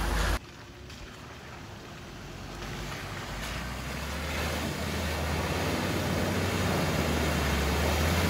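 Ford Ranger ute's engine running as it drives toward the listener on a muddy track, getting steadily louder, with its tyres pushing through a muddy puddle near the end.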